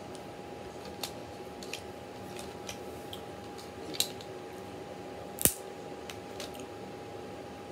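Jonah crab claw shell being cracked and picked apart by hand: scattered sharp cracks and clicks, the loudest about five and a half seconds in.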